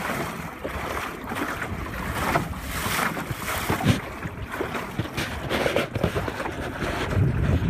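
Water washing and splashing along the hull of a 12-foot wooden Whitehall sailing skiff under way, with wind buffeting the microphone. The low wind rumble grows louder near the end.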